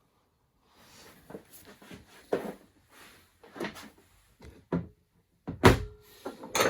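Steel machine parts being handled: irregular knocks and scrapes, then a loud metal clank about five and a half seconds in that rings briefly, and another sharp knock near the end.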